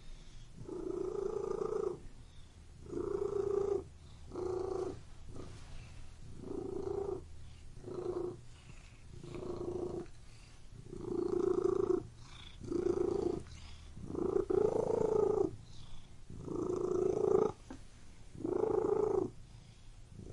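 Domestic cat purring close up, in regular swells about every one and a half to two seconds with short quieter gaps between them.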